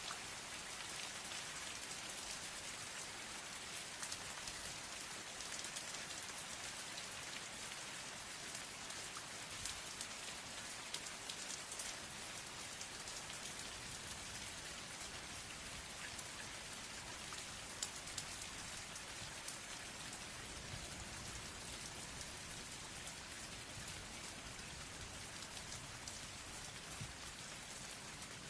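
Steady rain falling, with many small drop ticks over a continuous hiss.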